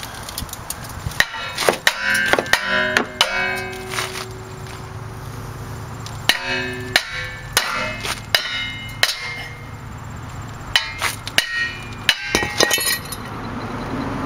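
Hammer blows on a stuck rear brake rotor of a 2005 VW Touareg, in three quick bursts of strikes, each hit leaving a short metallic ring from the rotor. The rotor is being knocked off the hub and comes loose after the last burst.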